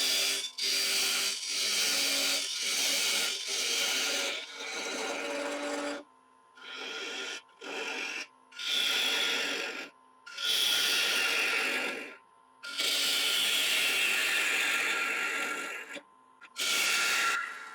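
A turning tool cutting into the inside of an Iroko bowl spinning on a wood lathe, hollowing it out. The cutting comes in passes of one to three seconds with short breaks between them, over a faint steady hum.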